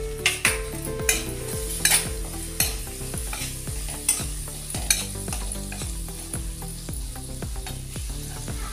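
Metal spatula scraping and tapping against a metal kadhai while stirring garlic, curry leaves, ground green chilli and spices frying in hot oil for a kadhi tempering. The oil sizzles steadily, with sharp scrapes at irregular moments that are most frequent in the first five seconds.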